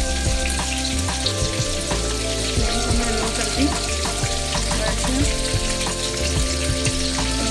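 Batter-coated prawns shallow-frying in hot oil in a nonstick pan, sizzling steadily. Metal tongs click against the pan and the prawns now and then as they are turned.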